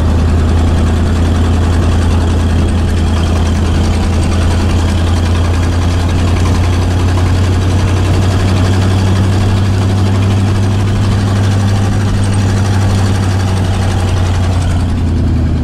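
Vehicle engine running with a steady low drone, heard from inside the vehicle.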